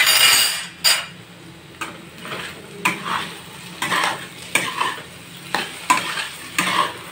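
Metal spatula stirring and scraping thin-cut potato strips around a metal kadai as they fry and sizzle in oil. A louder scrape comes right at the start, then short strokes follow every half second to a second.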